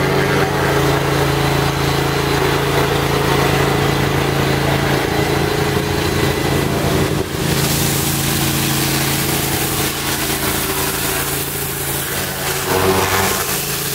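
A pressure washer's engine running steadily, joined about halfway through by the loud hiss of the high-pressure water spray.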